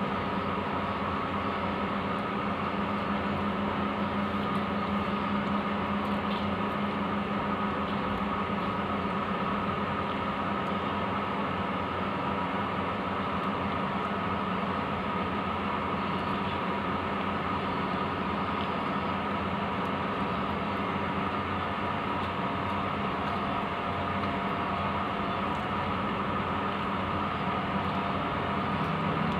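A steady mechanical hum that does not change, with a constant low tone and a higher whine over an even rushing noise.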